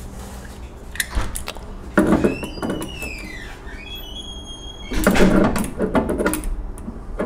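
Tool work on a metal gas-line fitting being tightened down: a click, a knock, then a squeaky creak that glides down and up in pitch and holds for a moment, followed by a louder scraping rustle about five seconds in.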